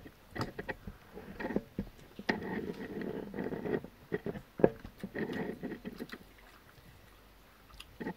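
Close-up eating sounds of biryani eaten by hand: fingers squishing and scooping the rice off a banana leaf, and mouths chewing, in a run of short clicks and smacks. It goes quieter about six seconds in.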